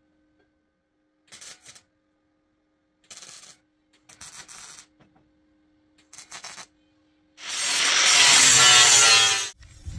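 Four short MIG tack welds crackling on steel plate, each about half a second long, then an angle grinder running on the steel for about two seconds, loudest of all, its pitch dropping as it works before it stops.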